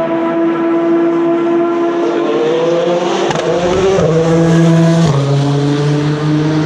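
Race car engines at the corner: one holds a steady high-revving note, then a deeper engine comes in about three seconds in and drops in pitch in steps at its gear changes.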